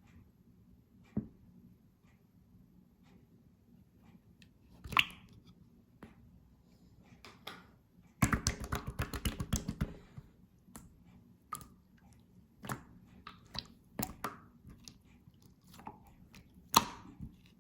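Banana-milk slime being squished and poked by hand: scattered sticky clicks and pops, with a dense run of rapid crackling pops from about eight seconds in for two seconds.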